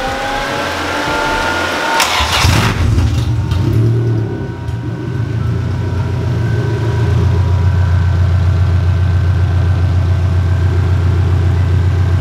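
Toyota AE86's 4A-GE twin-cam four-cylinder cranking on the starter with a rising whine, catching about two seconds in, revving briefly, then settling into a steady idle. It is running on open headers with the exhaust removed, and at idle it sounds good.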